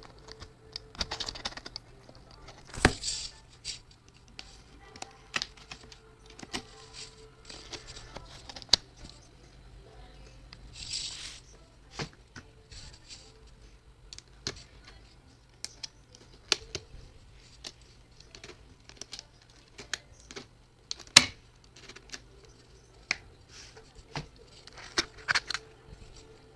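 Album packaging being handled and unwrapped by hand: scattered sharp clicks and taps, with a few short rustles of wrapping about a second in, near three seconds, around eleven seconds and near the end.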